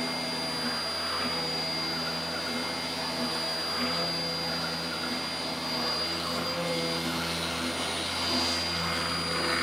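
A 48 V, 400 W DC CNC spindle motor is running steadily with a high-pitched whine while its 1/8-inch bit spiral-drills a hole into solid aspen. The hum underneath shifts every second or so as the machine moves. A PWM speed controller is holding the spindle near a target of 5,000 RPM under the cutting load.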